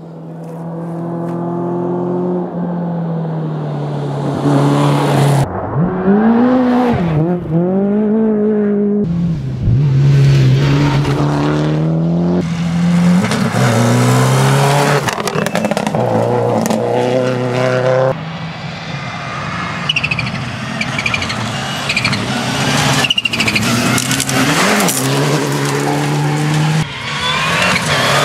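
Rally cars at full throttle on a gravel stage, engines revving up and dropping back through gear changes, with loose gravel and tyre noise, in a run of short clips that cut abruptly from one car to the next.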